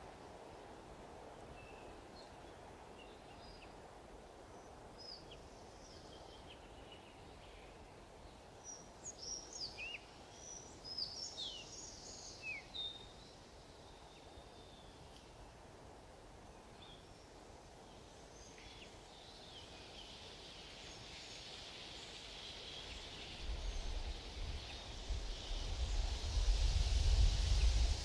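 Natural outdoor ambience: a steady soft background noise with small birds chirping in short calls for several seconds in the middle, then a rushing noise with a low rumble swells up over the last few seconds.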